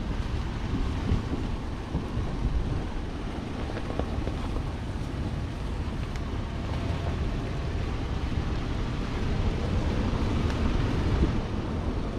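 Off-road vehicle driving along a rutted dirt trail: a steady low rumble of the ride with a few faint knocks, and wind buffeting the microphone.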